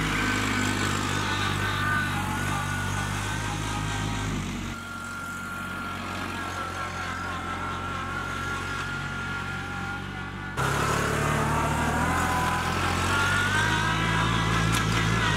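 Kubota B2261 compact tractor's diesel engine running under load as the tractor drives fast over bumpy ground, with a high whine above the engine note. The sound drops suddenly about five seconds in and jumps back up about ten and a half seconds in.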